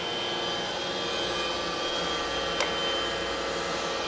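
Warner & Swasey/Norton universal cylindrical grinder running with its swing-down internal grinding spindle on: a steady high whine over the machine's lower hum. A single sharp click comes a little after halfway.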